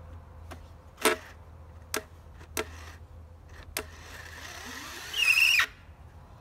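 Cordless drill driving a long screw into a hard ash board, straining against the dense wood, with several sharp clicks and a brief loud high-pitched squeal about five seconds in.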